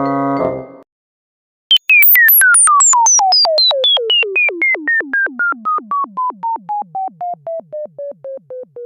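Cartoon falling sound effect: a long train of synthesized pulsed tones, about four a second, each dipping in pitch, the whole series sliding steadily down from a high whistle to a low tone and growing fainter. It opens with the end of a sustained synth chord.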